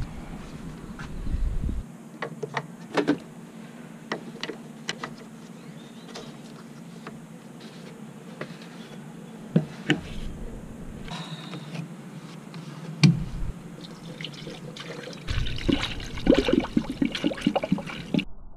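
Scattered light plastic clicks and knocks as a spill-free funnel is handled and fitted to the radiator filler neck. Then, a few seconds before the end, coolant pours from a jug into the plastic funnel in quick uneven splashes and gurgles, stopping abruptly.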